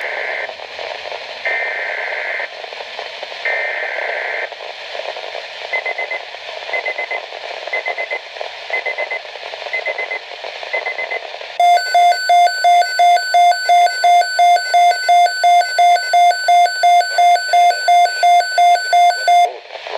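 Weather radio emergency alert over a steady hiss: three one-second bursts of screeching SAME digital header tones, then faint short beeps about once a second. About twelve seconds in, the receiver's alarm starts beeping loudly, about two or three beeps a second, for roughly eight seconds.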